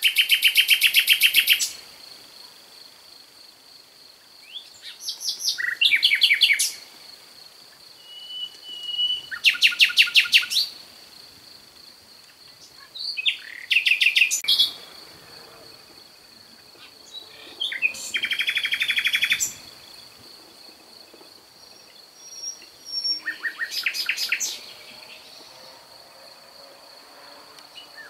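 A songbird singing six loud phrases of rapid repeated notes, each one to two seconds long, roughly every four to five seconds. A steady, thin, high insect-like drone runs underneath.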